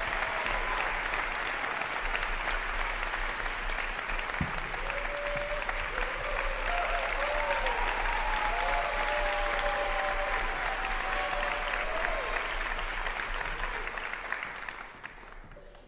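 Audience applauding in a concert hall, with cheering voices rising over the clapping in the middle; the applause dies away near the end.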